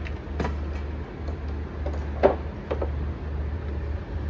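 A few light clicks and knocks of hands handling parts under a car's dashboard, the loudest about two seconds in, over a steady low rumble.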